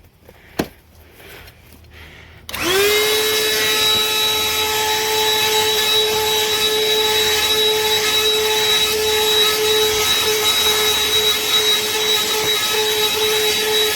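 BLACK+DECKER 20-volt dustbuster (BDH2000L) cordless handheld vacuum switched on about two and a half seconds in: its motor spins up quickly to a steady high whine over a rushing airflow hiss and keeps running evenly. A single click comes just before it.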